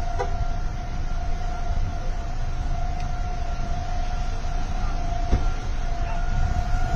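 Outdoor tornado warning siren sounding a steady, unwavering tone, under a loud low rumble of wind buffeting the microphone.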